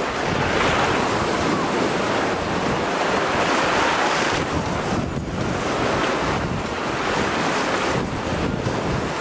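Small waves washing in over a pebble shore, with wind buffeting the microphone.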